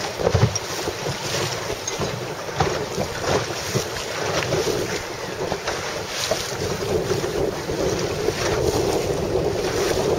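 Wind buffeting the microphone in irregular gusts, over the splash and wash of choppy water.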